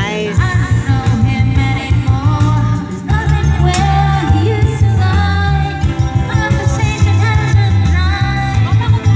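Background music: a song with a singing voice over a steady, pulsing bass line, with a brief break about three seconds in.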